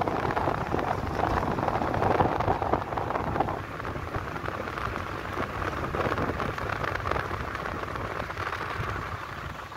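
Wind noise and road rumble from a moving car, a steady rushing with low buffeting on the microphone that eases slightly about three and a half seconds in.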